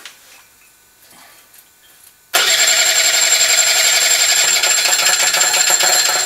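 The 48-cylinder Kawasaki engine being cranked over by its starter: the cranking starts suddenly about two seconds in, runs loud and even for about four seconds, then stops.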